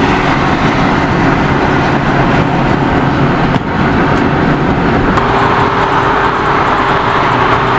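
Dodge Viper ACR's V10 engine running steadily at highway cruising speed, mixed with tyre and wind noise from the traffic.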